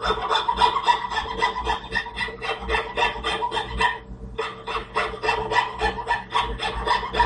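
Hand frame scroll saw (fretsaw) cutting thin wood: quick rasping back-and-forth strokes, about four a second, with a brief pause about four seconds in.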